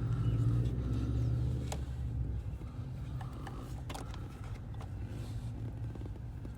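A low steady rumble, strongest in the first two seconds and then easing off, with a few short sharp clicks.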